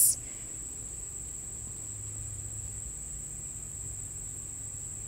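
A steady, unbroken high-pitched tone, with a faint low hum underneath.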